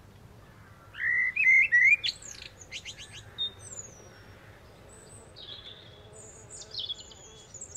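Wild birds singing outdoors in short, high chirping phrases, loudest about a second in, with more song near the end.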